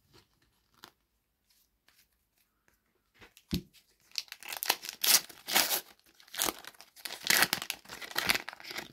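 A Panini FIFA 365 trading-card sachet's foil wrapper being torn open and crinkled, a dense run of tearing and crackling from about four seconds in. Before it come a few faint clicks of cards being handled and a soft knock.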